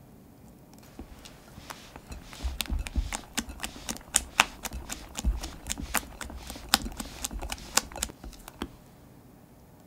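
Spatula stirring a thick blueberry cream cheese batter in a glass bowl: quick, irregular clicks and taps against the glass, several a second, with soft low knocks underneath. It starts about a second in and stops near the end.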